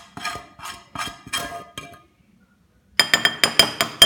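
Roasted khoya being scraped and knocked out of a steel pan into a glass mixing bowl. A few short scrapes come first, then after a pause a quick burst of ringing clinks, metal against glass.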